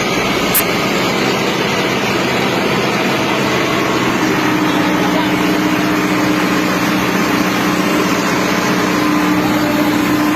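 An engine running steadily under a dense rushing noise, with a constant low hum that grows stronger about four seconds in.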